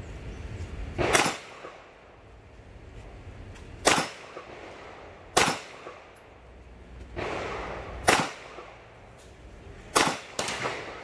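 Handgun fired six times at uneven intervals, the last two shots in quick succession, each a sharp crack with a short decay.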